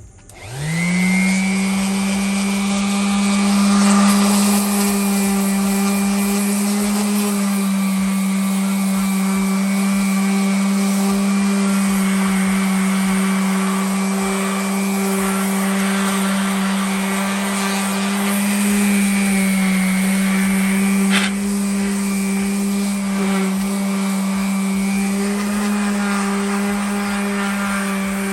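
Electric power tool starting up, spinning up within about a second and then running steadily under light, shifting load while cleaning a table saw's top. There is a sharp click about 21 seconds in.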